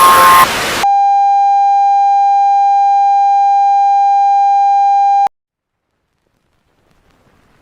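A burst of loud static with steady high-pitched whines, lasting under a second. Then a single steady electronic tone with faint overtones holds for about four and a half seconds and cuts off abruptly into silence.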